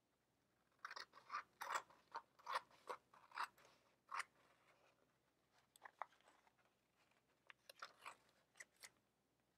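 Scissors snipping through a sheet of colored paper: a quick run of short cuts in the first four seconds, then a few scattered snips later.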